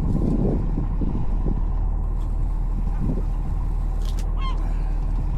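Fishing boat's engine running steadily, with a few dull knocks and a brief high squeak about four seconds in.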